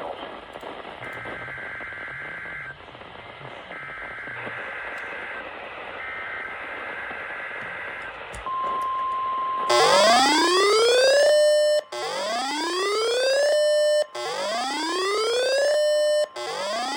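Three bursts of NOAA Weather Radio SAME header data, a two-tone digital warble, then a steady 1050 Hz alert tone sets in. Over it a weather radio receiver's alarm siren begins about ten seconds in: a loud rising whoop that climbs and holds, repeated about every two seconds.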